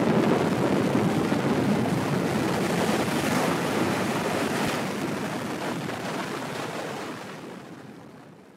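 Ocean surf breaking on rocks: a steady, dense rushing wash of waves that fades away toward the end.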